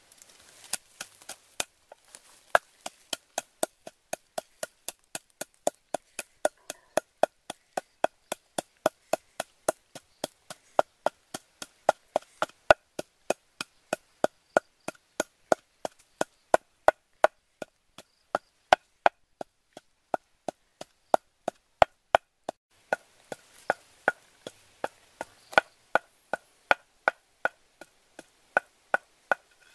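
Wooden pestle pounding salt and black peppercorns in a tall wooden mortar: a steady run of sharp wooden knocks, about two to three strikes a second.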